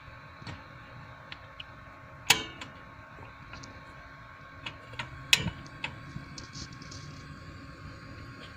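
Portable butane cassette stove being lit: sharp snaps of the piezo igniter knob, the two loudest about two and five seconds in, with lighter clicks and knocks around them; the burner catches and its gas flame runs steadily after the second snap.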